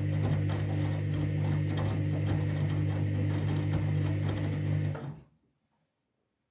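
Front-loading washing machine on a 60-degree main wash: the drum motor hums steadily while the tea towels tumble in an even rhythm. The sound cuts off suddenly about five seconds in.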